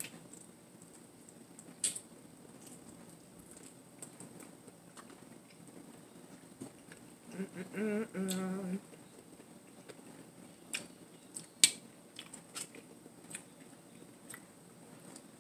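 Close-up eating sounds: lip smacks, clicks and chewing on a biscuit, with a hummed 'mmm' of enjoyment lasting about a second and a half around the middle.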